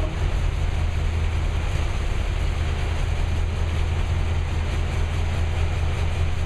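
Carbureted engine with a Lunati solid-lifter camshaft idling steadily, its valve lash freshly reset to fourteen thousandths hot, intake and exhaust.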